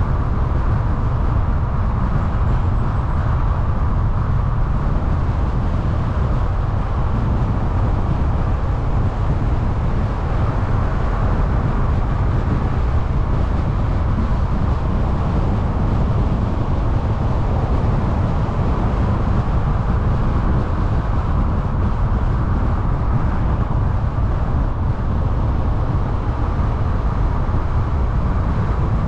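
Steady road noise of a car driving at a constant speed: a low rumble of tyres and wind that stays even throughout.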